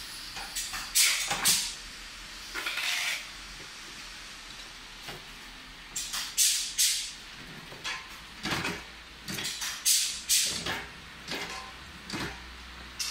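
Marine captain's seat being swivelled, slid along its metal floor rail and adjusted by its levers: a string of short scraping and clunking sounds from the rail, swivel and adjuster mechanisms, irregularly spaced.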